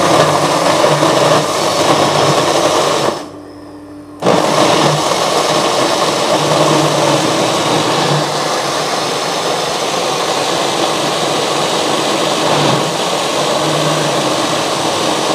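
Sharp countertop electric blender running at steady speed, whirring as it purees chopped ripe banana into a whipped egg and sugar mixture. The sound drops away for about a second roughly three seconds in, then carries on evenly.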